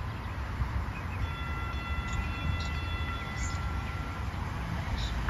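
LYNX Blue Line Siemens S70 light rail train approaching, a steady low rumble, with a high-pitched whine that holds one pitch for about three seconds in the middle.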